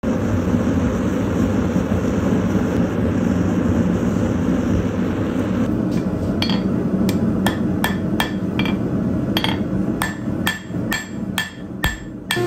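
Hand hammer forging red-hot steel on an anvil: a run of about fifteen ringing blows, roughly two to three a second, starting about halfway through, drawing out the blade end of a twisted spike. A steady rushing noise runs underneath.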